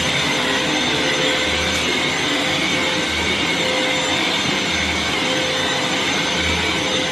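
Vax cordless stick vacuum cleaner running steadily: an even rush of air with a constant motor whine, and a low pulse repeating about every second and a half.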